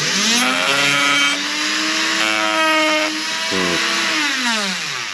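Dremel rotary tool motor spinning up to a steady high whine, then winding down with falling pitch near the end.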